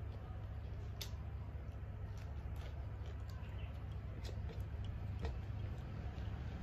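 Eating rice by hand from a steel plate: scattered faint clicks and ticks of fingers mixing rice against the plate and of chewing, over a steady low hum.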